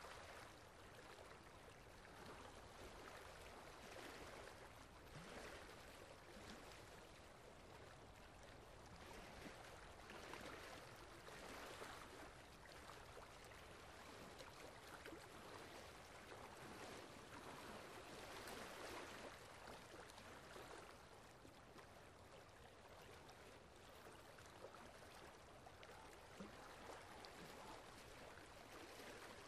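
Faint water from a leaking tap, occasional drops falling into a concrete sink over a low, even hiss.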